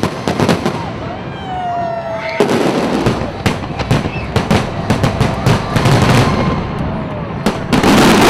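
Aerial fireworks going off: a quick run of bangs and crackles, then a loud, dense crackling burst near the end.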